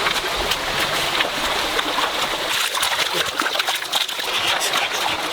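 Water splashing and trickling steadily, with many small splashes.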